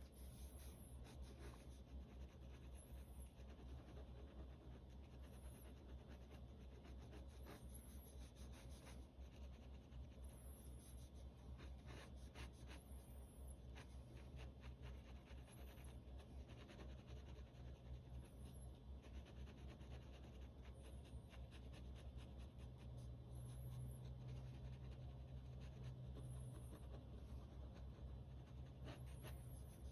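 Faint scratching of a pen on sketchbook paper in many short, quick hatching strokes, over a steady low hum.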